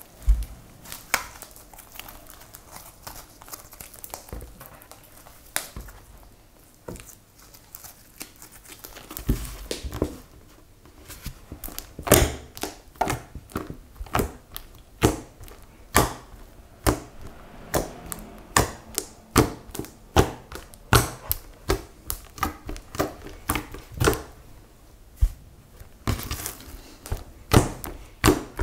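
Green slime with small beads being stretched, squeezed and poked by fingers, giving soft squelches and sharp clicks. The clicks come sparsely at first and then steadily, about two a second, from about halfway through.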